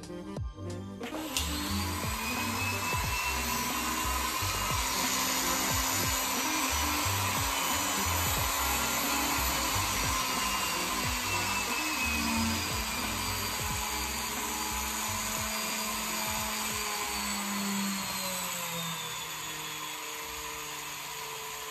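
Microtek jeweller's hanging flex-shaft motor spinning a small polishing wheel in its handpiece. It starts up about a second in and runs steadily, its pitch drifting gently as the foot pedal changes its speed, and eases off a little near the end.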